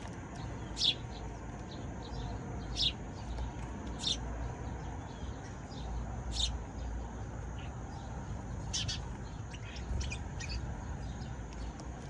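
Sparrows chirping: short, sharp single chirps every second or two, with several in quick succession about nine to ten seconds in, over a steady low background rumble.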